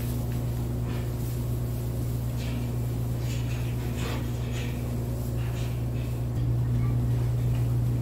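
A steady low mechanical hum that gets louder about six and a half seconds in, with a few faint knocks and rustles.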